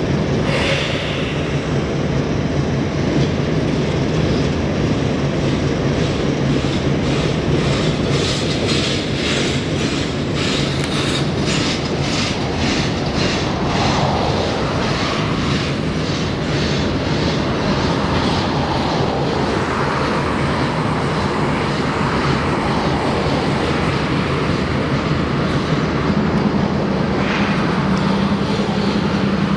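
A train rolling past with its wheels clacking over rail joints, a steady run of about two clicks a second in the first half, over a continuous rumble and low hum.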